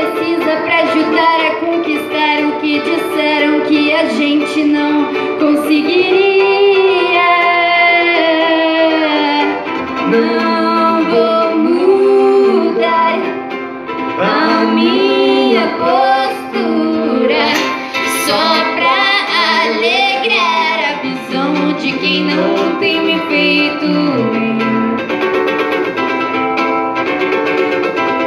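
Live music: a woman singing over string-instrument accompaniment, with held notes and a melody that moves more about halfway through.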